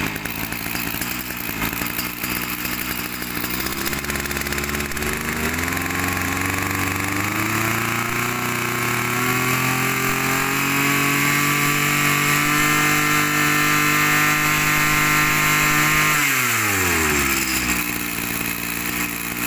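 Small two-stroke brush cutter engine, a 37–38 cc Kawasaki on a Maru cutter, idling, then throttled up over a few seconds and held at high revs for about ten seconds. Near the end it is let off and drops quickly back to idle.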